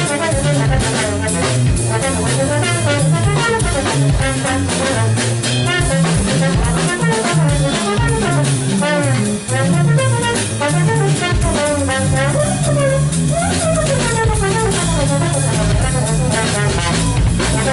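Live jazz trio playing: a trombone carries a bending melodic line with a rising slide near the middle, over keytar and a drum kit with busy cymbal and drum strikes and a steady low bass line underneath.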